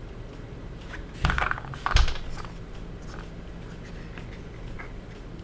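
Objects handled at close range: a short rustling scrape about a second in, then a single sharp knock, with faint small clicks around them.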